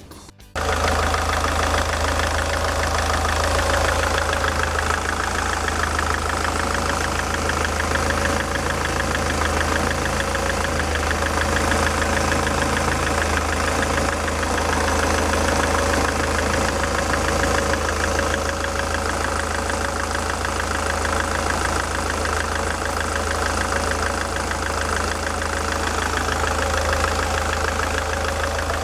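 SsangYong Kyron's D20DT four-cylinder turbodiesel idling steadily with its belt drive freshly refitted over a repaired tensioner, with the usual diesel clatter. A faint extra knock remains, which the owner judges is no longer coming from the tensioner.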